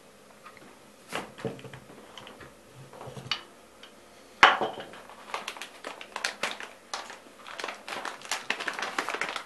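Handling of a plastic electric coffee grinder with its lid off: scattered light clicks, a sharp knock about four and a half seconds in, then a run of quick light clicks and rattles.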